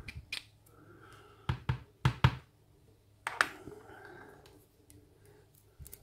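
Steel tweezers clicking and tapping against a disassembled brass lock cylinder as its pin chambers are probed, in a few irregular sharp clicks, two pairs close together near the middle.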